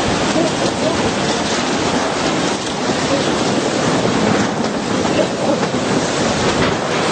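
Steady rush of tsunami floodwater, a continuous noise of moving water.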